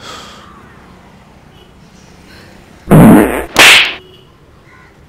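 Two loud fart sounds in quick succession about three seconds in, the first deeper and the second higher and hissier.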